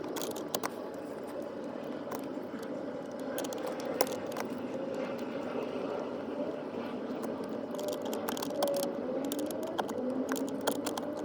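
Small clicks, rattles and scrapes of a wire terminal and tool as a ground wire is fastened to a bolt under a car's dashboard, over a steady hum.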